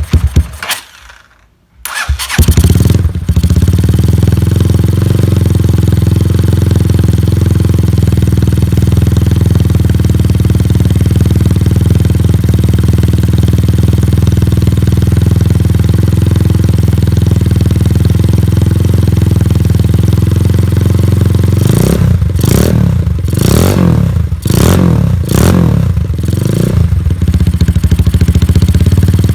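Honda CB Tiger 2000's single-cylinder engine running through a PDK aftermarket exhaust. It dies away for about a second near the start, starts again and idles steadily. About three-quarters of the way through it is blipped with about five quick revs, then settles back to idle.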